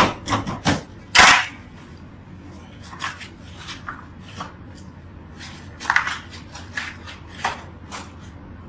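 Rocker-blade pizza cutter chopping through a pizza in a few fast, sharp strokes, the loudest just after a second in. Then quieter, scattered knocks and slaps of cardboard pizza boxes being folded shut and stacked.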